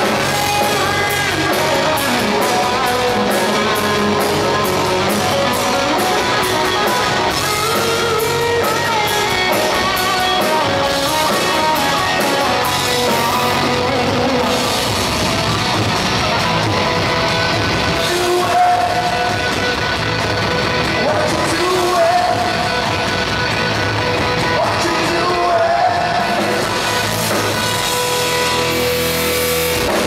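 Progressive metal band playing live on stage: electric guitars, bass and drum kit at full volume, with sung vocals over them.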